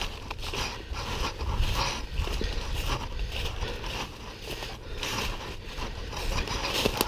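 Footsteps crunching and rustling through deep dry fallen leaves at a walking pace, over a low rumble of wind on the microphone. A single sharp click comes near the end.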